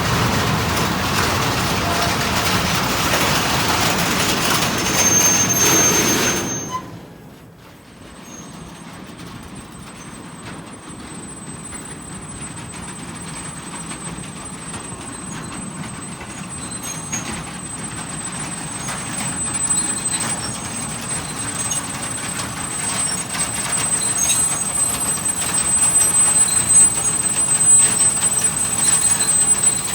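A loud rumble that cuts off abruptly about six seconds in, then an electric train approaching, its noise building steadily with a thin high whine over it.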